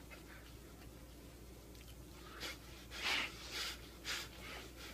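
A person breathing hard through the mouth in four short, breathy gasps in the second half, the sign of a mouth burning from just-eaten hot jalapenos.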